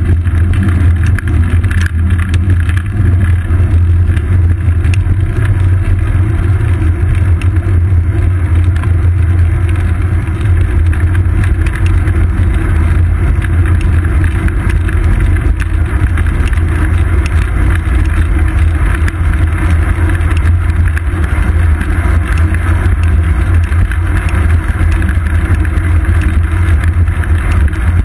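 Wind buffeting the microphone of a seat-post-mounted GoPro Hero 2 on a moving road bicycle, a loud, steady, deep rumble, mixed with tyre and road noise and small rattling clicks from the mount.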